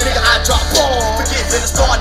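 Hip hop track with rapping over heavy, steady bass, played through a car audio system with two 12-inch SPL subwoofers.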